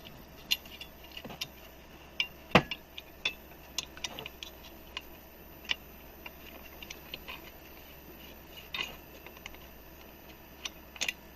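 Metal parts of an aluminium cabinet hardware drilling jig being handled and adjusted: scattered sharp clicks and clinks, the loudest about two and a half seconds in, fewer in the second half.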